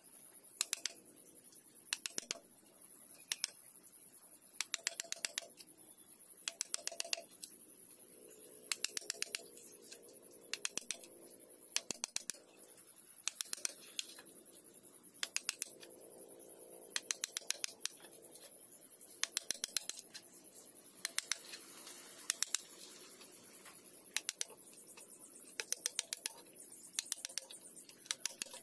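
Hammer striking a chisel to cut holes into green bamboo poles: quick bursts of several light strikes, with a pause of a second or so between bursts. A steady high-pitched hiss runs underneath.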